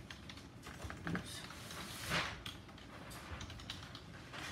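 Computer keyboard typing: quick, irregular key clicks, with a louder brief rustle about halfway through.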